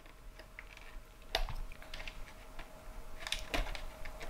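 Light plastic clicks and taps as the plastic knobs are worked off the front of a car radio, with a couple of sharper clicks about a second and a half in and again near the end.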